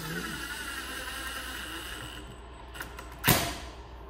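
Cordless drill-driver running steadily for about two seconds, driving a screw through a metal pipe flange into a wooden board. A single loud, sharp click comes about three seconds in.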